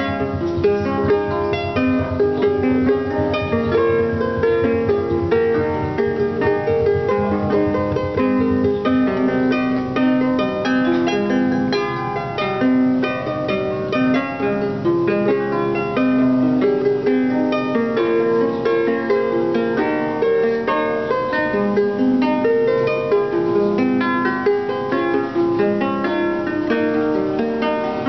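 Wooden harp played by hand: a steady, unbroken stream of plucked notes, a melody over lower accompanying notes.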